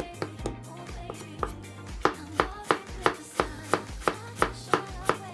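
Chinese cleaver slicing a peeled potato on a bamboo cutting board: the blade knocks on the board in a regular rhythm, a few scattered strokes at first, then about three a second from about two seconds in.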